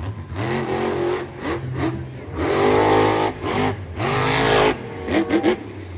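Car engine revving, its pitch rising and falling several times, loudest in two bursts around the middle, with a few quick clicks near the end.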